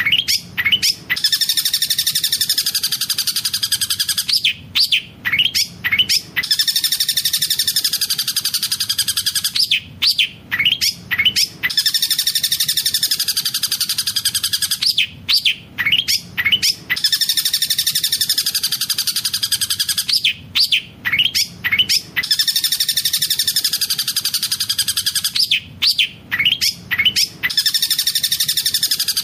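Long-tailed shrike (cendet) singing a fast, rolling chatter mixed with imitated tengkek buto calls. The song runs in dense phrases of about three seconds, each followed by a few sharp separate notes, repeating about every five seconds.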